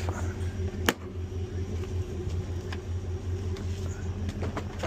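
Vehicle engine idling steadily with a low pulsing hum, and one sharp click about a second in.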